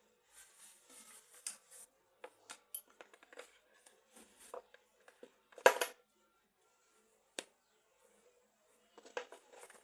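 Small handling noises as a belt and its packaging are handled: light rustling and scattered clicks, a loud clack a little before 6 seconds in and one sharp click about 7.5 seconds in.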